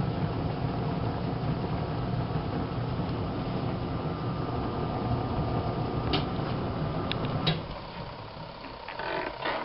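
Compact twin-tub washing machine's motor running with a steady hum, then cutting out about three-quarters of the way through, with a few light clicks just before it stops.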